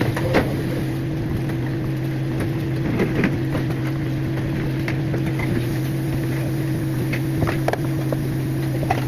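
A steady low mechanical hum runs throughout, with scattered sharp clicks and taps of metal cooking tools on a steel teppanyaki griddle as a New York strip steak is cut.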